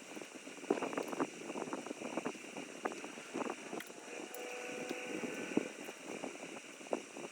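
Irregular light clicks and knocks of hand tools and metal parts being handled during an ATV teardown, over a steady background hiss.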